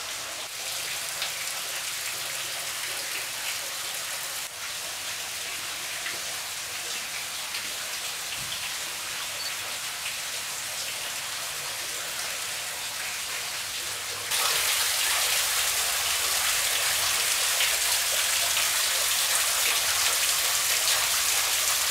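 Spring water trickling and splashing over a rock ledge into a cave pool, a steady splashing hiss that gets louder about fourteen seconds in.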